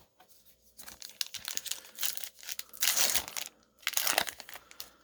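Foil wrapper of a baseball card pack crinkling and tearing open in irregular bursts of crackling.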